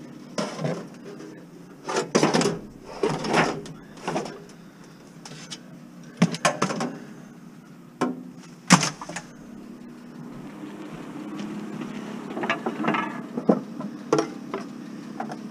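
Irregular clatter and sharp knocks of scrap being shifted and set down in a minivan's cargo area, including the metal frame of a folding lawn chair, over a steady low hum.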